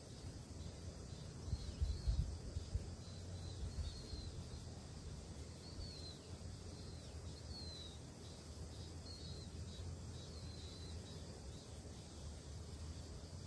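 Outdoor ambience: low wind rumble on the microphone, gusting about two seconds in, with a short high chirp repeated about once a second.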